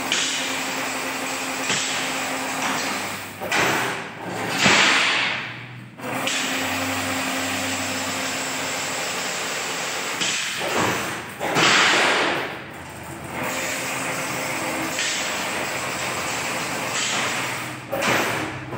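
Chain-link fence making machine running: a steady mechanical hum with a low tone, broken about every seven seconds by a louder rushing swell that lasts a second or two, three times in all.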